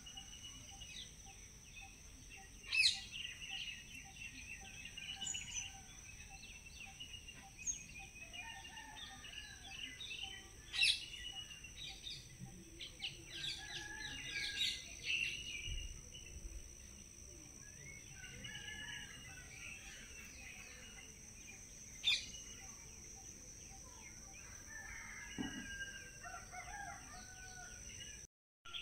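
Birds chirping and calling in the background over a steady high-pitched whine, with three sharp clicks spread across the stretch.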